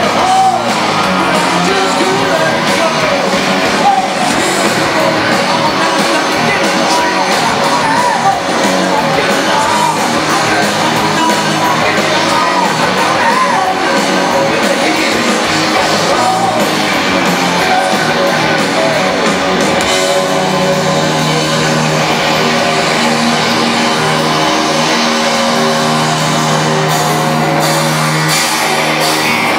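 Live rock band playing loud, with electric guitars, drums and a singer. About two-thirds of the way through, the guitars settle into long held chords.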